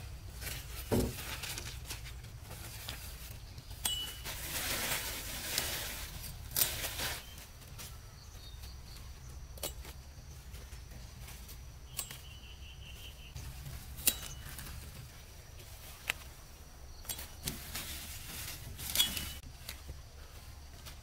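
A small knife cutting squash vine tips and leaves rustling as the stems are handled, with sharp snaps and clicks every second or two and a longer stretch of rustling a few seconds in.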